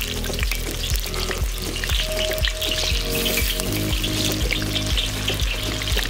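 Food frying and sizzling in hot oil in a kazan over a fire, with continuous crackling, under background music with a steady beat.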